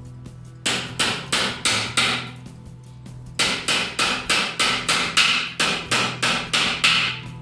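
A hammer striking wood in two quick runs of blows, about three a second, as in nailing together a plywood drawer. Steady background music plays underneath.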